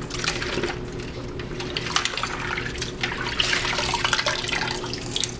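Water sloshing and splashing as a rubber gas mask facepiece is scrubbed by hand in soapy water, in irregular splashes with small drips and clicks.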